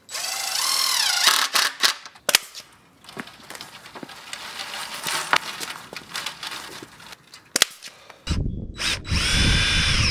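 Cordless drill driving screws into a wooden 2x2 frame: a motor whine rising in pitch, then clicks and knocks of the work. After that comes a rustle with sharp ticks as chicken wire is unrolled over the frame. Near the end the drill runs again briefly, with wind rumbling on the microphone.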